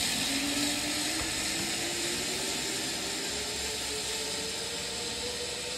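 Zipline trolley running down a steel cable: a steady whirring hiss with a thin whine that climbs slowly and evenly in pitch as the trolley gathers speed.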